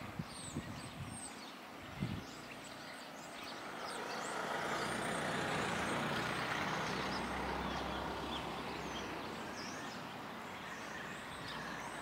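Many small birds chirping continuously. A road vehicle passes in the middle, its noise and low rumble swelling and then fading over several seconds. A few soft thumps in the first two seconds.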